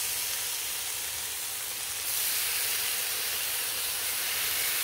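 Slices of pastrami sizzling in oil on a hot Blackstone steel griddle, a steady hiss that starts as the first slice goes down and grows louder about two seconds in as more slices are added.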